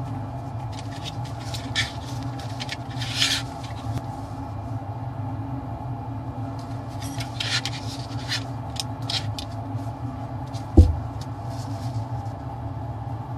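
Steady hum of a laboratory fume hood's fan, with light clicks and rustles of gloved hands handling a plastic box of glass coverslips, and one dull thump about eleven seconds in.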